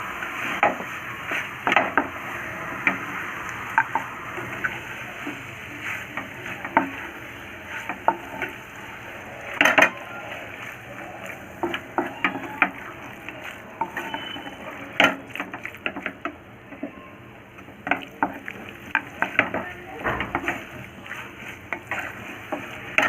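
Marinated chicken being stirred into frying masala in a pan: a steady sizzle under repeated irregular clicks and scrapes of the spoon against the pan.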